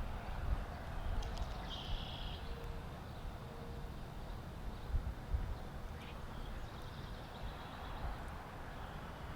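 Outdoor ambience: a low, uneven rumble with a few soft thumps, and a short bird call about two seconds in.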